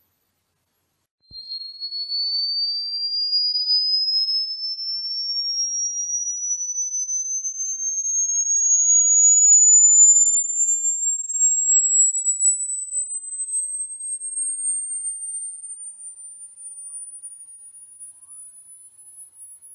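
Electronic pure tone of a rodent-repellent sound track. A very high tone cuts off about a second in, then a single tone starts and glides slowly and steadily upward in pitch, loudest about halfway and fading toward the end.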